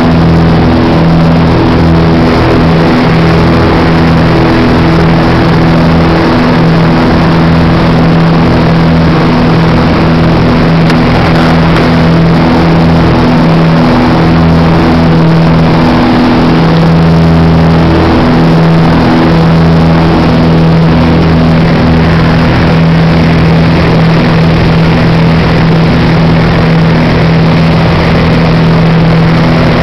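Piper Seneca's twin piston engines and propellers running at takeoff power, a loud, steady drone of several tones that wavers briefly near the middle.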